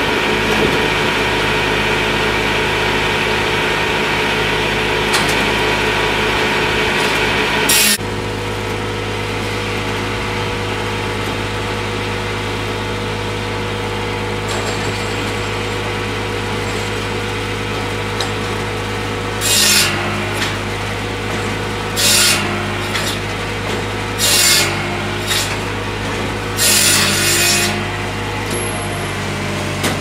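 Massey Ferguson 1020 tractor's three-cylinder diesel running steadily, driving a Hakki Pilke OH60 firewood processor through the PTO. For the first few seconds the processor saw cuts through slab wood, ending in a sharp crack about eight seconds in. Later, short bursts of wood scraping and grinding come every second or two as the processor works the wood.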